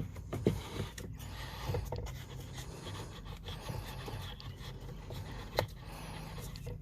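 Cabin air filter scraping and rubbing against the plastic filter housing as it is worked into its slot, with a few light clicks and knocks.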